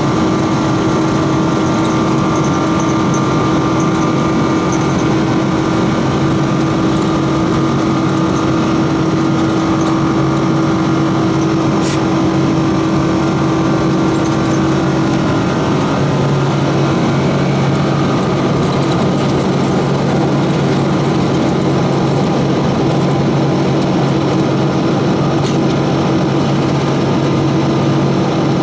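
Boeing 777-200ER's twin Rolls-Royce Trent 892 turbofans at takeoff power, heard inside the cabin over the wing during the takeoff roll and lift-off: a loud, steady engine noise with a low hum whose pitch shifts about halfway through.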